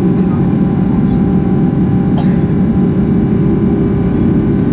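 Steady cabin roar of a Boeing 777-300ER's GE90-115B turbofan during the climb-out, heard from a window seat beside the engine, with a constant hum of several steady tones over the deep rumble. A brief scrape about two seconds in.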